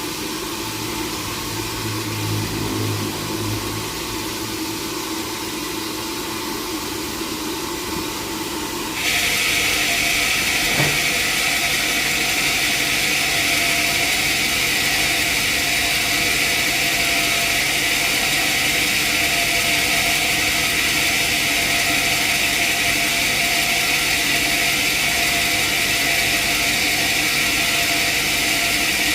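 Sawmill machinery running steadily. About nine seconds in, the sound steps up abruptly to a louder, steady hissing whine, which holds to the end, with a single click shortly after.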